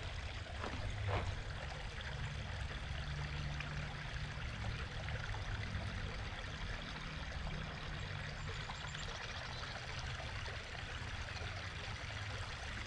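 Running water trickling steadily, a small stream, with a low rumble underneath.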